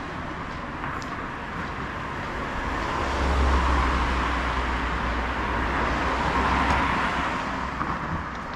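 Road traffic: a vehicle drives past close by, its engine and tyre noise swelling and then fading over a few seconds.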